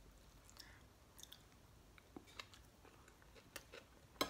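Faint chewing of a mouthful of food close to the microphone: soft wet clicks and small crackles. One sharper click comes near the end.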